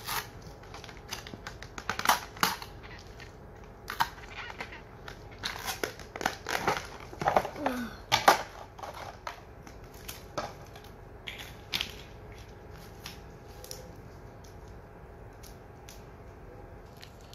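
Clear plastic toy packaging crinkling and crackling as it is pulled off and handled. The noise comes in irregular bursts, busiest in the first half and sparser in the second.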